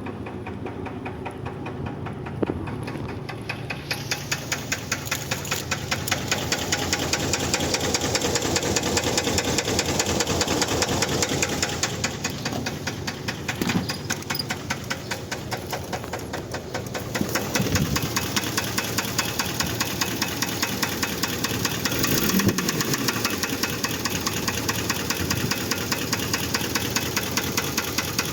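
Engine running with a regular, rapid metallic knock from worn connecting-rod bearings, wear put down to missed oil changes. It gets louder a few seconds in.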